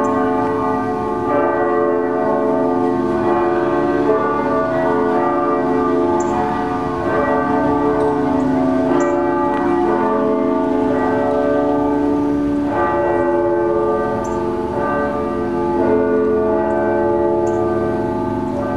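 Church bells ringing: several bells struck in turn every second or few seconds, their tones ringing on and overlapping.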